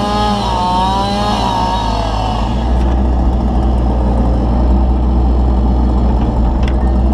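Kubota KX161-3 excavator's diesel engine and hydraulics working under load. A whine wavers in pitch for the first two seconds, then gives way to a steady low drone.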